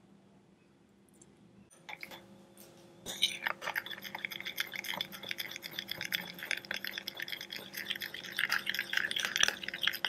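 A metal spoon stirring mayonnaise and chili sauce in a small glass bowl. It makes quick, busy wet scraping with light clinks of the spoon against the glass, starting about three seconds in after a quiet start.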